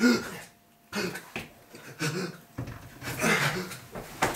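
Men grunting and gasping while wrestling in a staged fight: one loud grunt at the start, then after a brief pause a string of shorter grunts and breathy exclamations.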